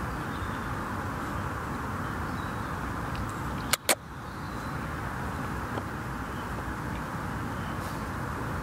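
Steady low outdoor background noise, broken by two sharp clicks and a brief dropout a little under four seconds in.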